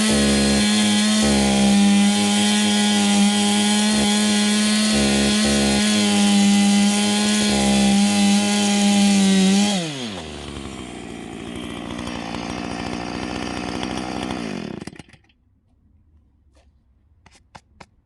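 Chainsaw engine running at full throttle, cutting firewood, with a steady high pitch. About 10 s in the throttle is released and the pitch falls to idle; the engine is switched off about 15 s in. A few faint clicks follow near the end.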